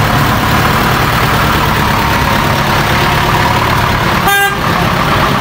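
Steady vehicle engine and street noise, with one short vehicle horn toot a little over four seconds in.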